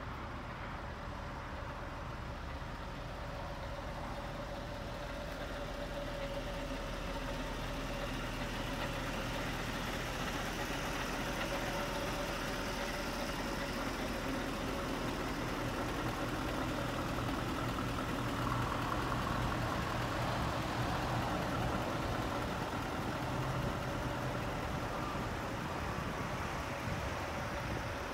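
Scania 520's 16-litre V8 diesel idling steadily, growing a little louder over the first several seconds.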